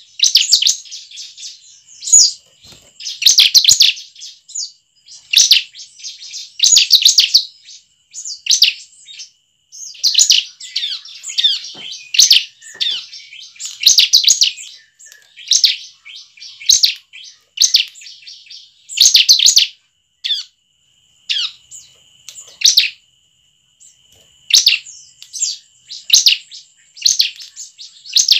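Bar-winged prinia (ciblek) singing: short bursts of rapid, high chirping notes, repeated every second or two.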